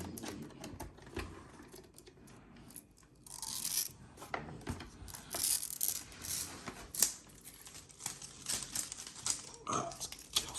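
Hard plastic parts of a Deebot N79S robot vacuum being handled: an irregular run of clicks, knocks and scrapes.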